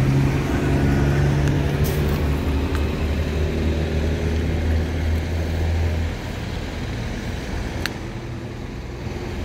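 A road vehicle's engine running with a steady low drone that drops away about six seconds in, over a constant traffic hum, with a single sharp click near the end.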